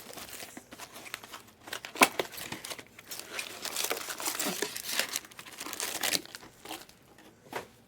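Foil wrappers of Panini Prizm and Optic Fast Break basketball card packs being torn open and crinkled by hand, in an irregular run of crackles and rustles, with one sharp crackle about two seconds in.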